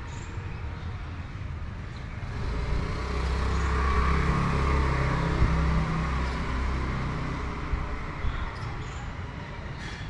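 A motor vehicle passing by, its low engine rumble swelling over a few seconds and then fading away.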